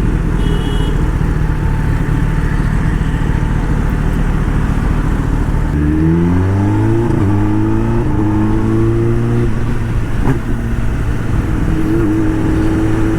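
Kawasaki ZX10R's inline-four engine, first running steadily at low revs, then revving up about six seconds in as the bike pulls away. Its pitch rises and then holds steady.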